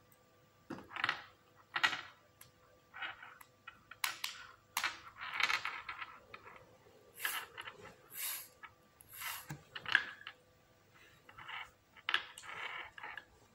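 Lego Technic plastic pieces being handled and pressed together: about a dozen short, irregular clicks and rattles.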